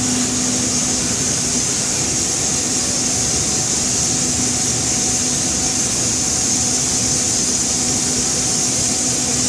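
Coal pouring out of a power-plant coal mill through its fully opened discharge door: a loud, steady rush with a constant machine hum underneath.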